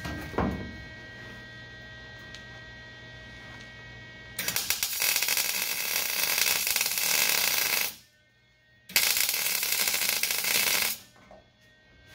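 MIG welder laying two tack welds on a steel body mount, each a steady loud crackle: the first lasts about three and a half seconds, the second about two, with a second's pause between. Before the tacks there is a low steady hum and a couple of light knocks.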